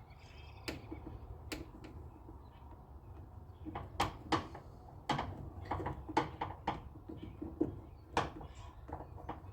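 Irregular sharp clicks and knocks of hand work on a car door's handle and lock hardware, metal parts and tools tapping against the door, thickest in the second half, over a low steady hum.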